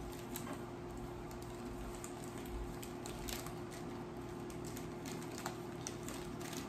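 Light, scattered clicks and soft rustling of Pokémon booster packs being handled and stacked, over a steady low electrical hum.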